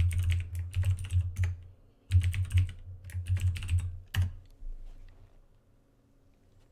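Typing on a computer keyboard: two quick runs of keystrokes with a short pause between them, dying away after about four seconds.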